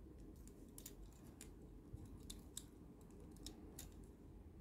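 Faint, irregular clicks of hard plastic parts on a small Mechanic Studio MS-24 Transformers figure as its joints and panels are moved and snapped into place during transformation, about ten in all.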